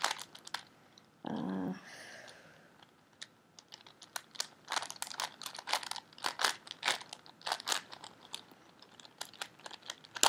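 Plastic 4x4x4 Rubik's cube being turned layer by layer: irregular runs of dry clicks and clacks, several a second, with a pause of a couple of seconds early on. The cube is loose and unstable.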